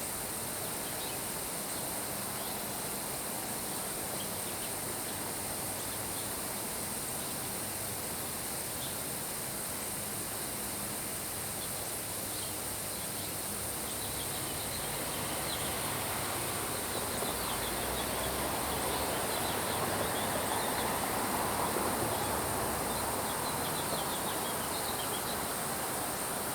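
Soft, steady rain hiss under a constant high drone of insects, with scattered short chirps of insects or birds; the hiss swells a little past the middle.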